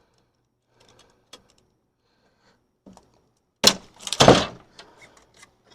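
Handling of a boxed miter saw and its packing: a few light clicks, then about three and a half seconds in a sharp snap followed at once by a heavier, deeper thud.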